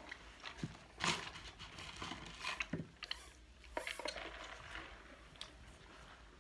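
Eating and table noises: a drink sipped through a straw, with scattered short clicks, knocks and rustles, busiest in the first four seconds.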